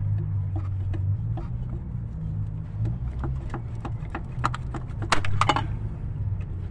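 Honda Pilot's metal coolant connecting pipe being twisted and pulled out of the engine by hand: scattered metal clicks and knocks, with a quick run of sharper clicks about five seconds in as it comes free. A steady low rumble runs underneath.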